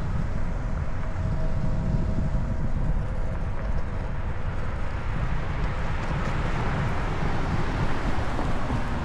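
Longboard wheels rolling over asphalt: a steady, loud rumble from the road surface, mixed with wind on the microphone as the board cruises along.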